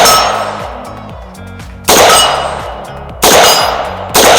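Four gunshots fired at steel targets: one at the start, one about two seconds in, one a little past three seconds and one near the end. Each has an echoing tail, and a brief metallic ring follows the first two.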